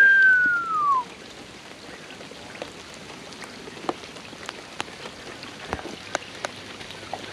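Wet snow and rain falling steadily onto canal water and a narrowboat, a steady patter with scattered sharp drop ticks. At the very start, one loud whistle glides down in pitch over about a second.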